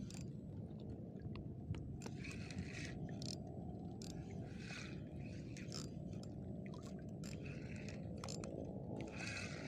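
Sea water lapping and sloshing close to a wading angler, with a brief swishing rustle about every two and a half seconds and a few light clicks.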